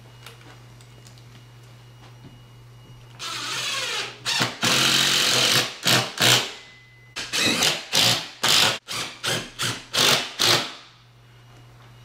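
Cordless drill/driver driving screws into a projector ceiling mount. It starts about three seconds in with a run of about a second, then a longer run, then a string of short trigger bursts.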